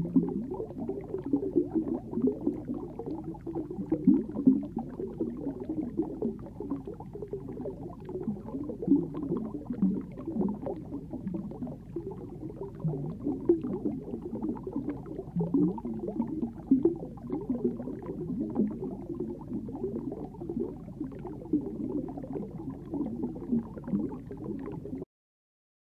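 Muffled underwater water sound: continual irregular bubbling and gurgling, cutting off suddenly near the end.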